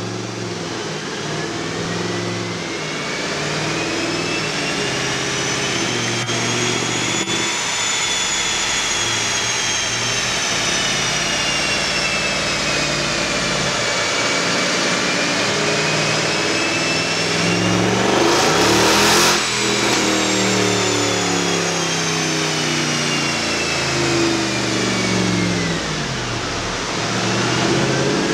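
Mercedes-Benz C63 AMG's 6.2-litre V8, tuned, running hard on a chassis dynamometer: the revs climb, ease, climb again to a brief loud rush of noise about two-thirds of the way through, then fall away and pick up once more near the end. A high whine rises and falls along with the speed.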